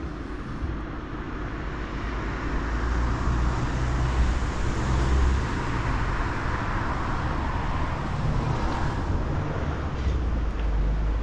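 Road traffic: a car passing, its tyre and engine noise swelling to a peak about halfway through and fading, with a further swell of traffic noise near the end.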